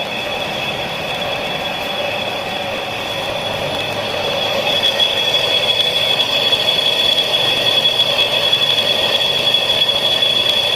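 Lathe running with a steady high-pitched whine over a lower hum, growing louder about halfway through.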